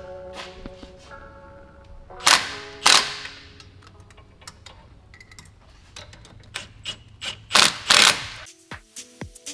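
Four loud, sharp metallic bangs in two pairs, about two seconds in and again near the end, with lighter ticks between them, from tools working the bolts of the Jeep Grand Cherokee WJ's front shock and suspension mounts. Background music is heard faintly at the start and again near the end.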